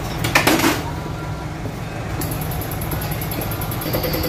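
Diesel injector test bench running with a steady low hum. About half a second in there is a short, loud burst of noise, and from about two seconds in a fast, even ticking sets in.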